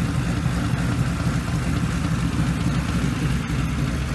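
Ford Mustang 4.6-litre 2-valve V8 running steadily at idle with a knock from the bottom end, which the owner is pretty sure is rod knock.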